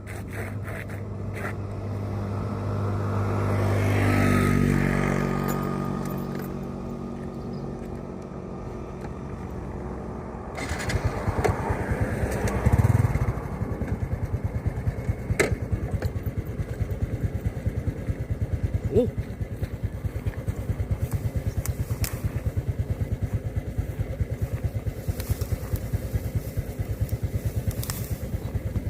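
An engine grows louder and fades away over the first ten seconds. Then an engine runs close by with a fast, even putter, with a few sharp knocks.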